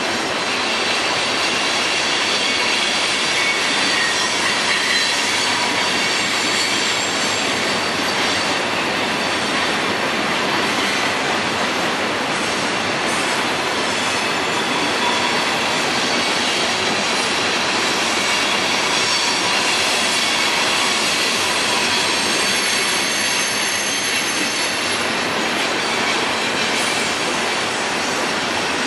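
Fully loaded CSX coal train rolling past, a steady rush of cars on the rails with high, thin wheel squeal over it.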